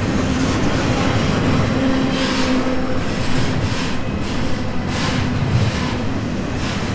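Double-stack intermodal container cars of a freight train rolling past, steel wheels rumbling on the rails with irregular clicks as the wheels cross the rail joints.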